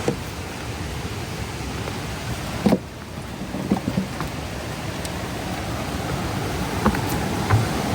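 Steady rushing of river water, with a few short knocks over it.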